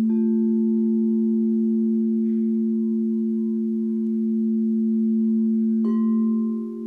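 Singing bowls ringing in a steady, sustained low drone. A bowl is struck at the start and again near the end, each strike adding a brighter ring above the drone, and the tone wavers just before the end.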